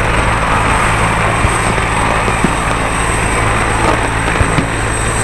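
Helicopter on the ground with its engine and rotor running: a steady drone with a thin high turbine whine above it.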